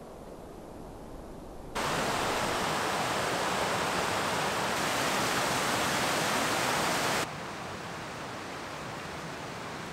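Cascading mountain creek rushing over rocks, a loud, even roar of white water that cuts in suddenly about two seconds in and drops away abruptly a little past halfway, leaving a quieter steady hiss.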